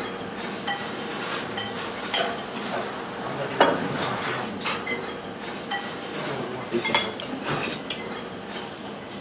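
Metal cutlery clinking and scraping against plates as several people eat pasta, in irregular short clinks throughout.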